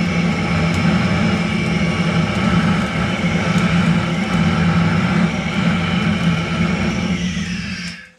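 Hand-held gas torch with a long wand blasting its flame into lump charcoal to light it: a loud, steady roar with a few sharp crackles from the sparking charcoal. The flame is shut off just before the end and the roar dies away.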